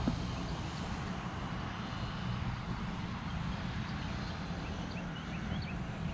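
A steady low outdoor rumble, with a bird chirping in short repeated notes over the last second and a half or so. A brief knock comes right at the start.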